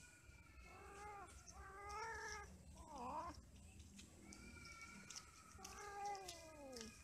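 Domestic cats yowling while mating: about four drawn-out, wavering caterwauls, the last and longest one sliding down in pitch near the end.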